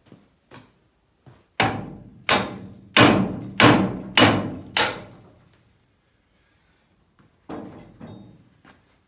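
Six hard knocks in quick succession, about 0.6 s apart, each ringing out briefly, as the wheel on an old Craftsman garden wagon's axle is struck and worked loose. Two lighter knocks follow near the end.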